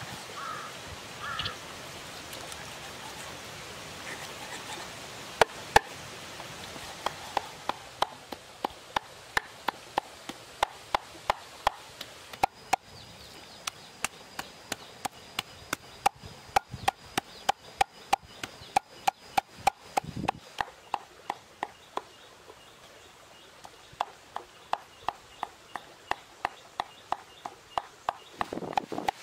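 A cleaver mincing raw pork on a wooden chopping board: sharp, even chops, about two to three a second. The chopping stops for a few seconds about two-thirds through, then starts again.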